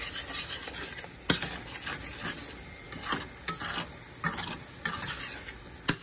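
Spatula stirring and scraping scrambled eggs in a metal skillet over a light sizzle, with sharp scrapes and knocks against the pan at irregular intervals, roughly once a second.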